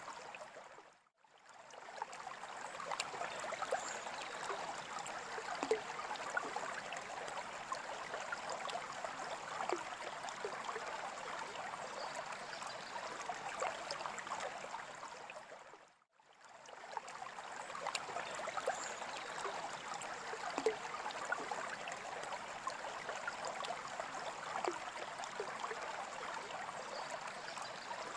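Aquarium water trickling and splashing steadily, with small bubbly pops. It fades out and back in briefly twice, about a second in and again about halfway through.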